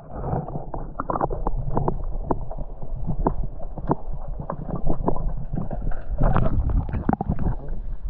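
Sea water heard underwater through an action camera's housing held just below the surface: a muffled low rumble of moving water with many sharp clicks and knocks.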